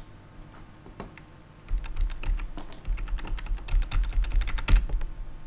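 Computer keyboard being typed on: a few scattered key clicks, then a quick, dense run of clicks for about three seconds, with dull low knocks under them.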